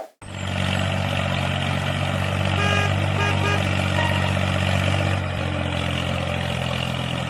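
A steady, even engine drone, with a few short beeping tones about three seconds in.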